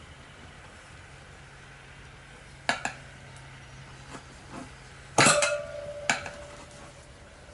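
Steel tyre levers clinking against a spoked motorcycle wheel's rim as the tyre is worked by hand: two light clinks about three seconds in, then a louder clank a little after five seconds that rings on for about a second, and one more clink shortly after.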